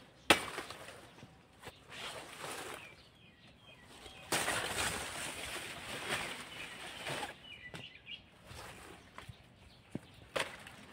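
A sharp crack about a third of a second in as the banana bunch is cut, then rustling and crackling of dry banana leaves and the plastic fruit bag, loudest for about three seconds midway, as the bagged bunch is pulled down. Birds chirp faintly now and then.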